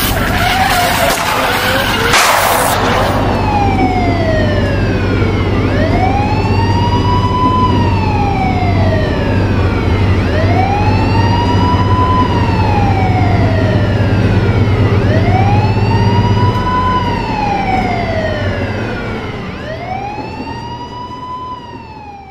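Police car siren wailing, slowly rising and falling in pitch about every four to five seconds over a steady low engine hum, fading out near the end. A loud crash about two seconds in ends the preceding din.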